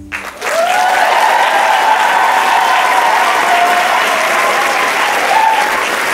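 Audience applauding and cheering at the end of a dance performance, with long high cries held over the clapping. The clapping starts about half a second in, just after the music stops.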